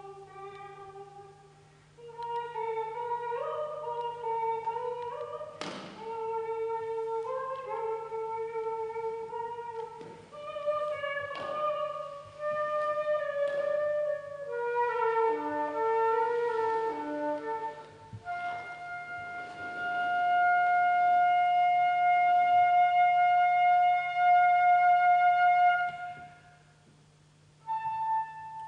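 Concert flute playing a slow solo line of sustained notes, ending in one long held note of about seven seconds, over a steady low electronic hum. A sharp knock sounds about six seconds in.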